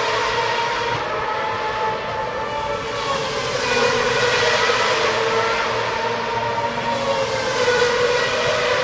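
Racing car engines running at high revs: a steady, dense whine of several tones that drift slightly in pitch as cars pass. It swells louder about four seconds in and again near the end.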